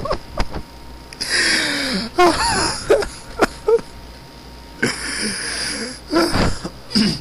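A person laughing hard: wheezing, breathy fits of laughter broken by short squeaky gasps, with brief pauses between fits.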